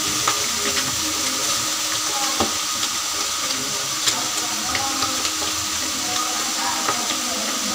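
Hot oil sizzling steadily in a wok as pieces of egg fry, with a few small crackles and pops.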